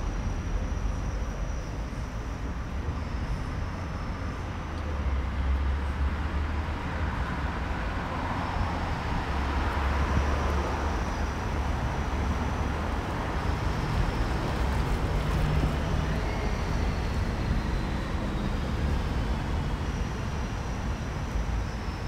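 Steady city traffic rumble, with a vehicle passing and swelling louder about halfway through.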